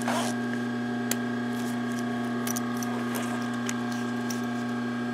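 Small handling sounds of a separating zipper and terry towels: a short rustle at the start, a sharp click about a second in and a few faint ticks, over a steady low electrical hum.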